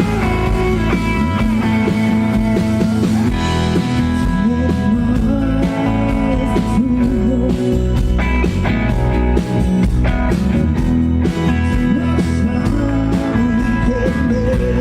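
Rock band playing a song: guitar with drums keeping a steady beat.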